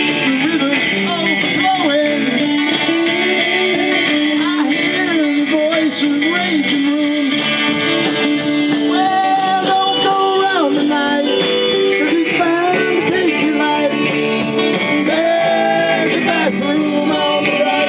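Live band playing a song: guitar with a singing voice over it.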